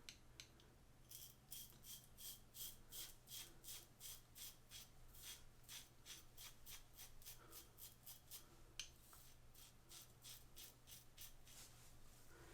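Double-edge safety razor (RazoRock Lupo 72) scraping through lathered stubble, about two short, faint strokes a second.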